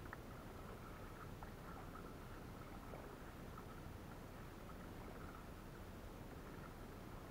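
Faint steady water noise around a kayak on the water, with a few soft ticks and one sharp click at the very end.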